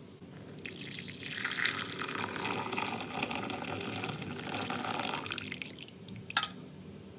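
Water running for about five seconds, swelling and then tailing off, followed by a single sharp click near the end.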